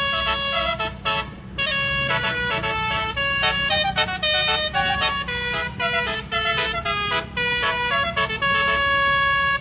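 Basuri-style telolet horn, a set of electric air-horn trumpets on a vehicle, playing a quick melody of changing notes in phrases with short breaks between them. A steady low rumble runs underneath.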